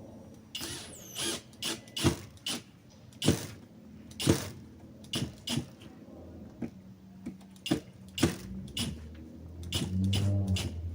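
Lock parts and mounting hardware being handled and fitted: a string of irregular sharp clicks and knocks, with a brief low hum near the end.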